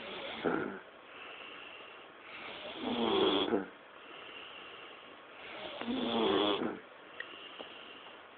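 A man snoring in his sleep: two long, loud snores about three seconds apart, with quieter breathing in between.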